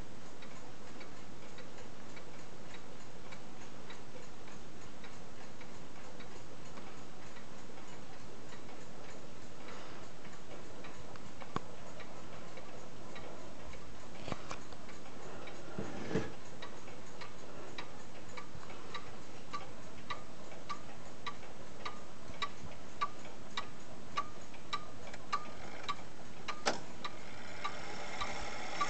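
1920s Haller wall clock's pendulum movement ticking steadily, under two ticks a second, faint at first and clearer in the second half, over a steady hiss. One brief low knock comes about halfway through.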